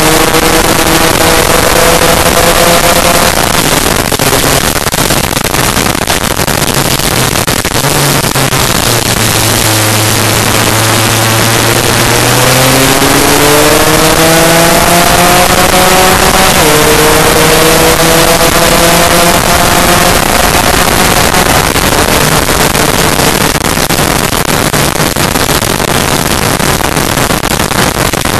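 Onboard sound of a Lambretta race scooter's two-stroke engine at racing speed, its pitch climbing as it accelerates and dropping back at two gear changes around the middle, under loud wind rush on the camera.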